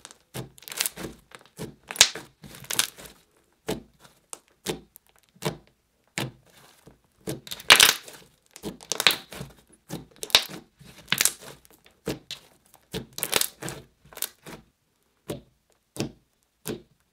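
Thick, glossy purple slime being squeezed, pressed and poked by hand: a run of short, irregular sticky crackles and pops.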